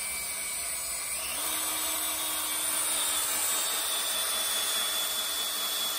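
Cordless drill with a twist bit boring into a small aluminum strip held in a bench vise, the motor running steadily and its whine rising a little in pitch about a second in.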